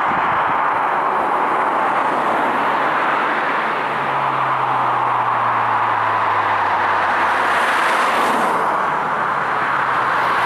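Road traffic passing: steady tyre and engine noise from cars on the road, with one engine's low note sliding down in pitch through the middle.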